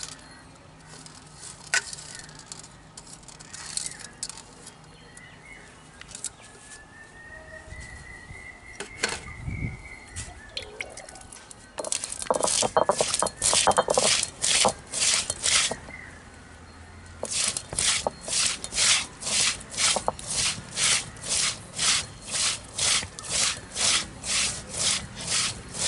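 Stone roller of an ammi (a flat grinding stone) rolled back and forth over whole spices (fennel, cumin, black peppercorns and garlic), crushing them in a steady rasping rhythm of about two strokes a second. The strokes start about halfway in, stop briefly, then run on. Before that there are only quieter knocks of the spices being laid on the stone.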